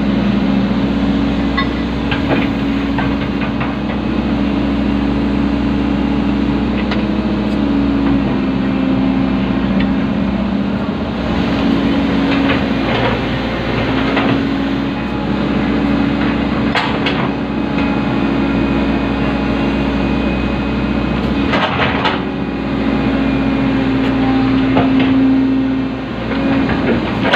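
Excavator's diesel engine running steadily, heard from inside the cab, its hum shifting in pitch a couple of times as the operator works the hydraulics. Occasional knocks and clanks come through.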